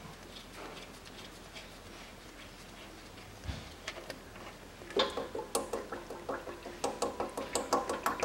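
A few faint clicks as the transfer case drain plug is unscrewed, then about five seconds in gear oil starts pouring from the drain hole and splattering into a catch container, a rapid irregular pattering that keeps on.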